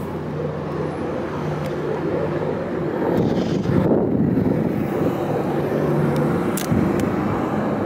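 BNSF diesel locomotives running, a steady low engine drone, with a louder rush of noise swelling about three seconds in.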